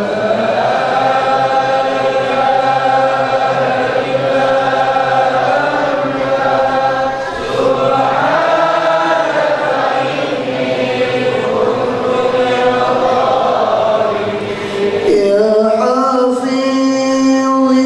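Men's congregation chanting dzikir together over a microphone, in long drawn-out melodic phrases. There is a short break about fifteen seconds in, then a new phrase begins on a higher held note.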